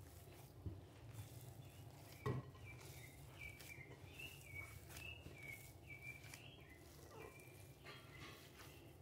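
Faint sounds of a hand kneading banana and cassava-flour dough in a glass bowl, with two dull thumps in the first few seconds, the second louder. A bird chirps faintly through the middle.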